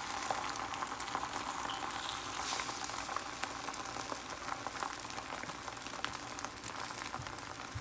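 Beaten egg frying in a pan: a steady sizzle with small crackles.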